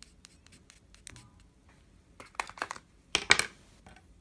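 Light clicks and scratches of a small tool mixing brown and black chalk pastel on a small plate, with a louder cluster of scraping strokes about two to three and a half seconds in.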